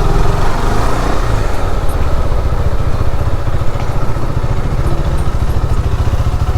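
KTM Duke 390's single-cylinder engine running steadily. The owner complains of an extra engine noise that sounds like a loose nut and could be the cam chain tensioner.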